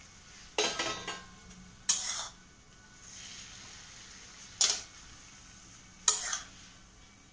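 A metal spatula scraping and clanking against a metal wok (kadhai) as cooked vegetables are scooped out into a steel bowl: four separate scrapes, spaced unevenly, over a faint steady hum.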